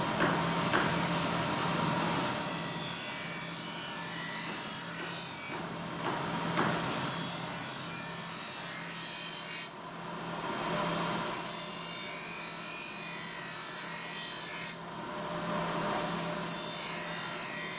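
Motor-driven grinding wheel working a carbon steel knife blade: a high grinding sound over a steady motor hum, breaking off sharply a few times and coming back as the blade is lifted and pressed on again.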